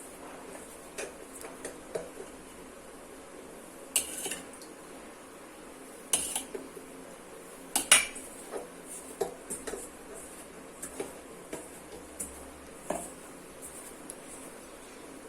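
Irregular clinks and knocks of metal kitchen utensils against a vessel while chapati dough is mixed and kneaded. A few louder knocks come about four, six and eight seconds in.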